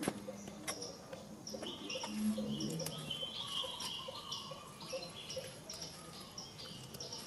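Birds chirping outdoors: a short high note repeating about twice a second, with a second bird warbling a little higher for a second or so about two seconds in.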